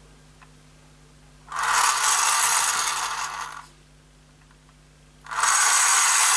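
Small battery motor and gears of a 1980 Guzzlers water-activated toy car whirring, its wheels spinning freely in the hand, after water is added to switch it on. It runs twice: for about two seconds starting about one and a half seconds in, then again from about five seconds in.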